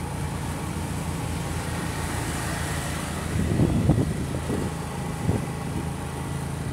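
Vehicle engine running steadily with road noise, heard from a vehicle moving along a street, with a brief louder rough stretch about halfway through.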